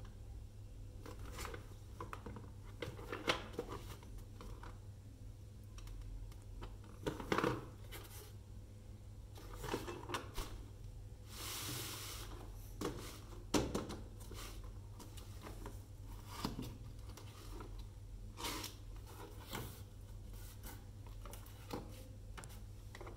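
Cardboard toy box being handled and opened by hand: scattered taps, scrapes and rustles of the cardboard, with one longer rustling scrape about halfway through, over a steady low hum.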